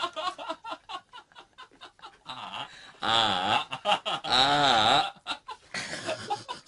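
After a couple of faint seconds, a voice makes two long wordless sounds about three seconds in, each sliding up and then down in pitch.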